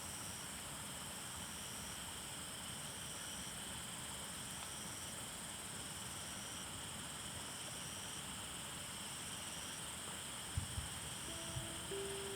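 Steady outdoor chorus of insects, several high trills running together, one of them switching on and off about once a second. A few soft low thumps and the first pitched music notes come in near the end.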